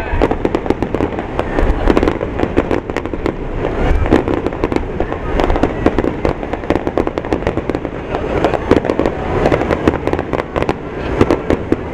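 Aerial fireworks bursting overhead in a rapid, continuous barrage: many bangs and crackles in quick succession, with deep booms underneath.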